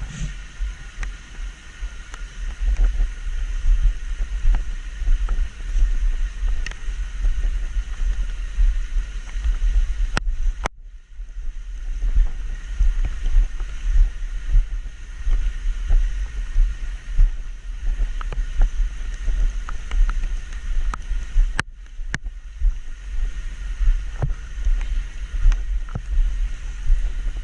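Wind rumbling and buffeting on a small action camera's microphone over a steady hiss, with two brief moments where the sound cuts out completely.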